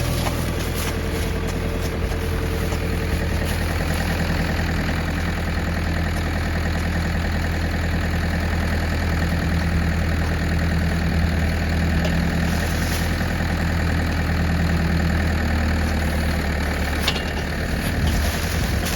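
Tractor engine running steadily, driving a PTO-powered post hole digger.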